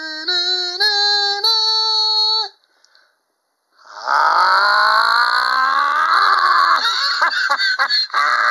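A man's voice singing a short fanfare of held notes that step up in pitch, then after a brief pause a long, loud excited yell that slowly rises, breaks up, and is held again near the end.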